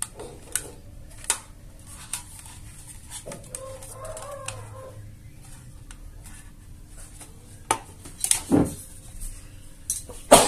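Plastic case of a salvaged Canon printer power adapter being handled on a tabletop: scattered clicks and knocks, with a sharper knock near the end as it is set down. A chicken clucks faintly in the background for a couple of seconds, a few seconds in.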